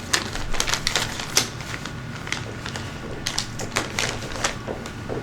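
Small tumbled gemstones clicking and knocking against each other as they are handled in their plastic bag, a rapid irregular patter of light clicks.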